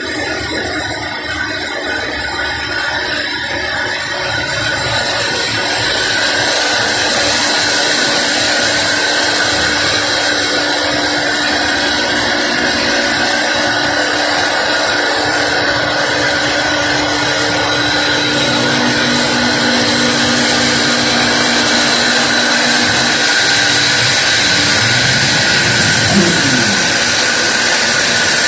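Sawmill workshop machinery running steadily, a loud, even noise with a steady high whine, growing a little louder over the first few seconds.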